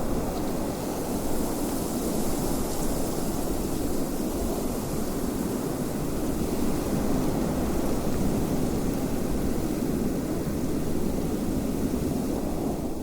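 Wind blowing steadily, a full, even rushing noise with gentle swells.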